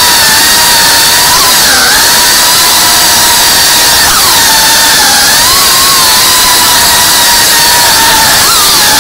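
FPV quadcopter's electric motors and propellers whining loudly, heard from the drone's own camera, the pitch dipping and rising again several times as the throttle is eased and pushed through the turns.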